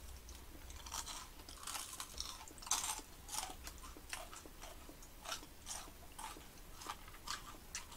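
Crunchy fried churros rolled in cinnamon sugar being bitten and chewed: a run of irregular crisp crunches, busiest about two to three seconds in.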